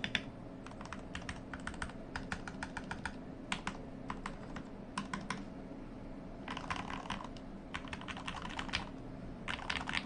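Modded TM680/LK67 mechanical keyboard being typed on. Keystrokes come in runs of separate clicks, then in quicker, denser bursts of typing in the second half.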